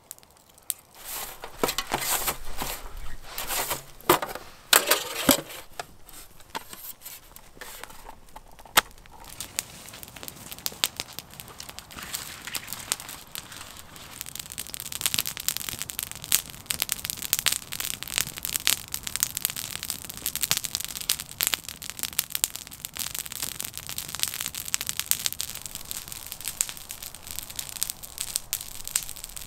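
Campfire with a heap of dry brushy branches thrown on, crackling and popping densely and more and more as it flares up. In the first several seconds, loud crunching of dry brush being handled and broken.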